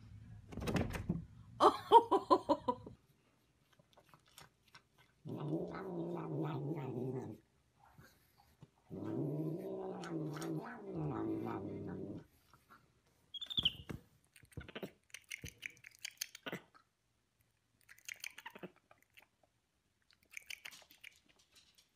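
Cats calling: a short meowing cry in the first few seconds, then two long, low, wavering yowls of about two to three seconds each from a cat growling over its food bowl while it is combed. Soft scattered clicks and taps follow.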